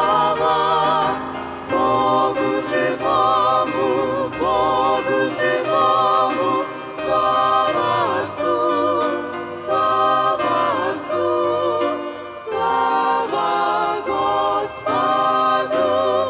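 Mixed group of men's and women's voices singing a hymn together in harmony through microphones, holding long notes with vibrato.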